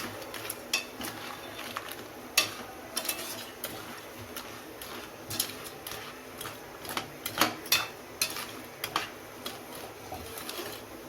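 A spoon stirring crab masala in a metal kadai, clinking and scraping against the pan at irregular moments, with a faint sizzle from the cooking curry.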